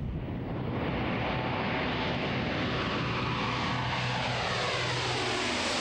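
C-130J Hercules's four Rolls-Royce AE 2100 turboprops at full power as it takes off and climbs away, a steady loud drone whose pitch falls over the last few seconds as it passes.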